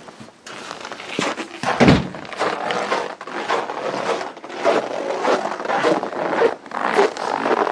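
Footsteps crunching in snow, about two steps a second, with a heavier low thump about two seconds in.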